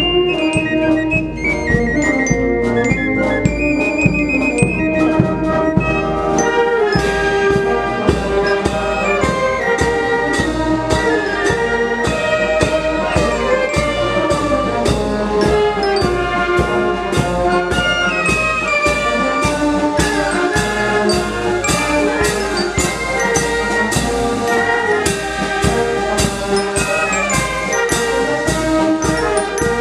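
A wind band playing: flutes and clarinets carry a lighter passage, then about seven seconds in the full band enters, with trumpets and trombones over a steady bass drum and cymbal beat.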